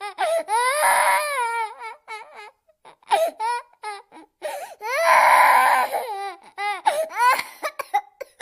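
Baby crying: two long, wavering wails with short, broken sobs between and after them.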